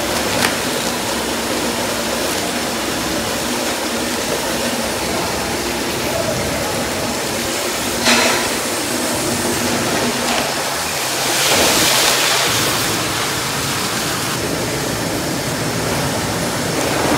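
Steady rushing background noise of a large working kitchen. A single knock comes about eight seconds in, and a hiss swells up and dies away about two-thirds of the way through.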